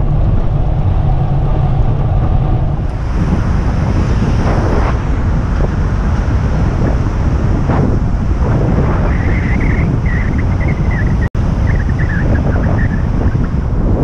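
Wind buffeting a bicycle rider's helmet-mounted camera microphone at speed, a steady low rumble mixed with road and traffic noise. A wavering high-pitched squeal comes and goes about two-thirds of the way through.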